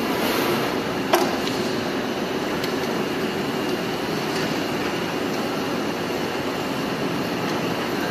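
Steady mechanical rumble and hiss, with one sharp clank about a second in.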